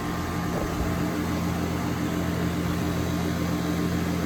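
Goodman outdoor air-conditioner condensing unit running steadily in cool mode: compressor hum with a few steady low tones under the whoosh of the condenser fan blowing out warm air.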